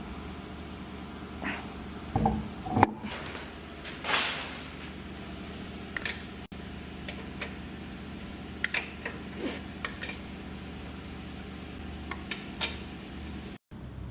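Masking tape being peeled from a freshly painted car body: scattered clicks and knocks, with a short noisy tearing sound about four seconds in, over a steady hum.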